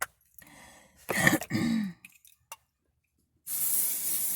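A person coughs and clears their throat about a second in. Near the end comes a steady hiss lasting about a second and a half: an aerosol can of dry shampoo being sprayed.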